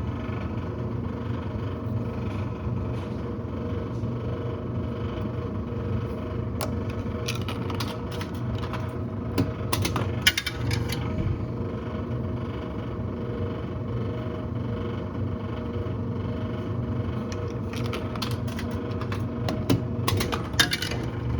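Clicks and clinks of quarters being fed into and returned from a vending machine's coin mechanism, in clusters around the middle and near the end, over a steady mechanical hum.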